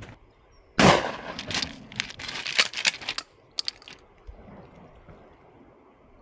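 A Mossberg 590 pump-action shotgun fires once, about a second in, with a light target load. A couple of seconds of sharp clicks and clatter follow, with two more clicks a little later.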